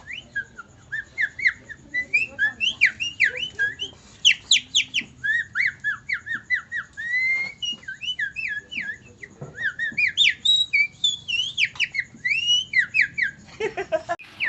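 A man whistling a rapid imitation of songbird song: a continuous run of quick rising and falling chirps and trills, with a few lower notes and a brief break near the end.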